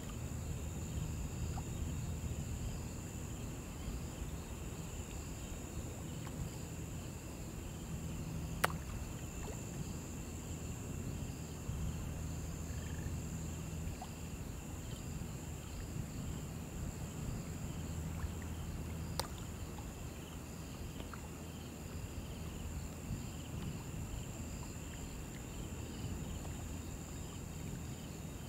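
Steady high-pitched drone of summer insects with a faster pulsing chirp beneath it, over the low rush of shallow river water. Two sharp clicks stand out, about 9 and 19 seconds in.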